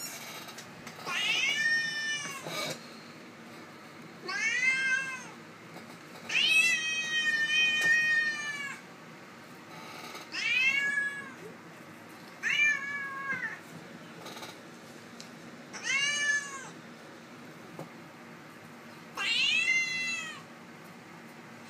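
Bobcat distress cries played back from a recording: seven high, pitched cries, each arching up and then down in pitch, most about a second long and the third stretching to about two seconds.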